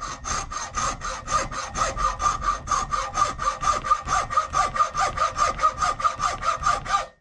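Hacksaw cutting into the end of a hickory hammer handle in quick, even back-and-forth strokes, about five a second, with a steady ringing note from the blade. The sawing stops abruptly just before the end; the cuts are the lines of an initial scored into the handle as a maker's mark.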